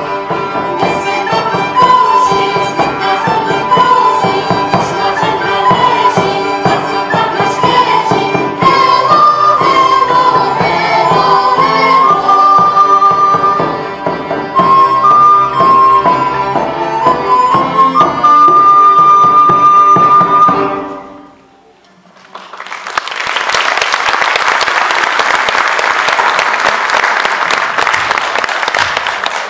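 Live Czech folk-dance music from a small band with a double bass, a bright melody line running over it; it stops after about twenty seconds and, after a short pause, the audience applauds.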